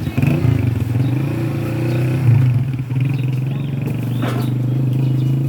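Small engine running steadily just after starting, a low, even hum.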